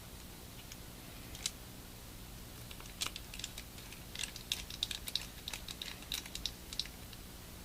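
Light, quick clicks and ticks of a small precision screwdriver driving a tiny screw into a Galaxy S3's plastic frame, a single click about a second and a half in, then an irregular run of them through the second half.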